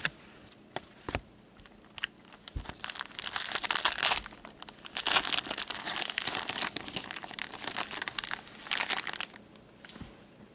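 Wrapper of a 2014-15 Upper Deck Masterpieces hockey card pack being torn open and crinkled by hand: a few light clicks of cards being handled, then a dense, crackling rustle lasting about six seconds that stops near the end.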